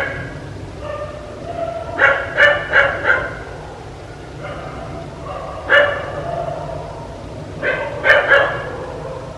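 A dog barking in short groups: a quick run of four barks about two seconds in, a single bark a little past the middle, and three more near the end.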